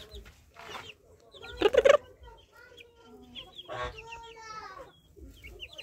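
Mother hen clucking softly among her month-old chicks, which give short high peeps; a brief loud call or knock stands out a little before two seconds in.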